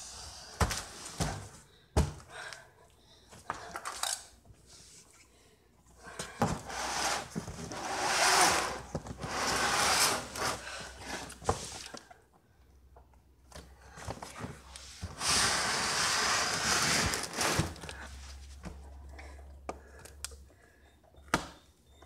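Unpacking noises from a cardboard box and its plastic wrapping: a few sharp knocks as the box is handled and set down, then two long stretches of rustling and scraping of plastic and cardboard.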